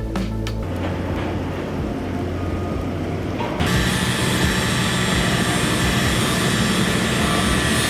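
An engine or machine running steadily, turning louder and harsher with a sudden step about three and a half seconds in.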